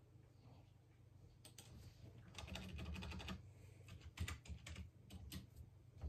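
Faint typing on a computer keyboard: a quick run of keystrokes in the first half, then a few scattered single key presses.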